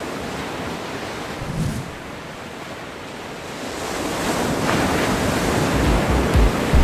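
Ocean surf: a steady rush of breaking waves and foaming water that swells louder over the second half, with a deep low rumble coming in near the end.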